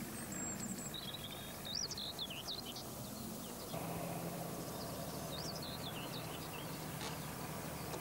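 Small birds chirping in short, wavering calls over a steady outdoor background hiss. About four seconds in, a low steady hum joins the background, and the chirping carries on over it.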